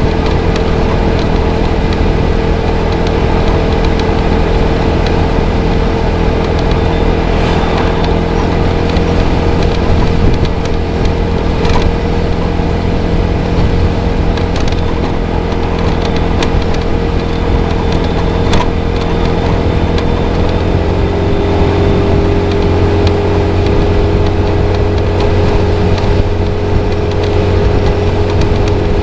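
A 250cc motorcycle engine running steadily at cruising speed on the road, with a continuous drone. Its pitch steps down slightly about twenty seconds in.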